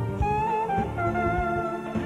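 Live clarinet playing an ornamented, bending melody over a band accompaniment with a steady beat.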